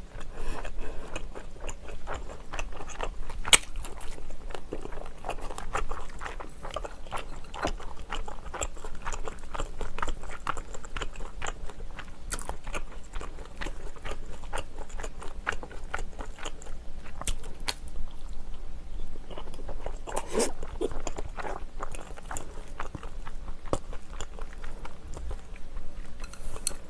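Close chewing and biting of a grilled short rib patty (tteok-galbi) with rice: a steady run of small mouth clicks and smacks, with a sharper click about three and a half seconds in.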